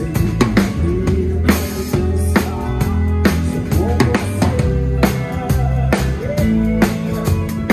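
Drum kit played in a groove: kick drum, snare and cymbal hits in quick succession, over accompanying music with a steady bass line.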